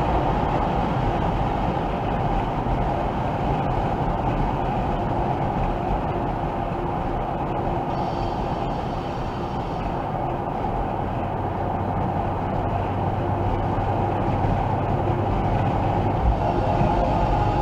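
C5 Corvette cruising at highway speed, heard from inside the cabin: a steady mix of tyre and road noise with a low engine hum.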